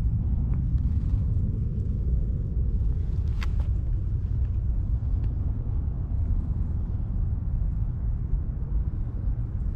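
Steady, fluctuating low wind rumble buffeting the microphone outdoors.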